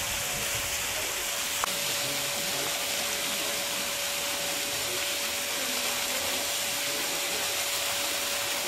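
Steady hissing noise with a faint steady tone running under it and faint voices in the background; one short click about a second and a half in.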